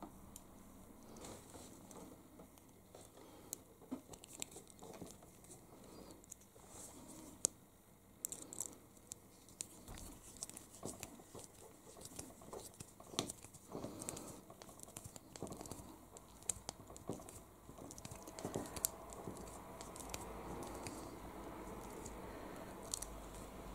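Faint scattered clicks and rustles of a small screwdriver driving a self-tapping screw into a small plastic arm, with handling of the plastic parts.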